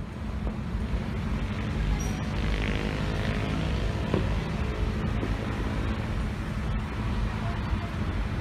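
Steady outdoor city din, mostly a low rumble of traffic, with a few faint clicks.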